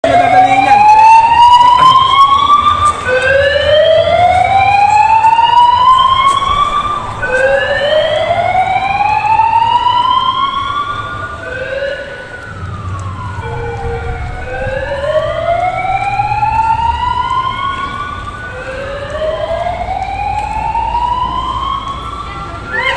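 Siren wailing: a pitch that climbs over about three seconds, drops back and climbs again, over and over. A second, steadier siren tone dips and rises again midway, with a low rumble underneath.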